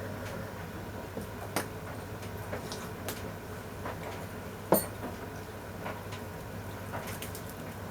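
Scattered light clinks and taps of dishes and cutlery at a breakfast table, with one sharper clink about five seconds in, over a low steady hum.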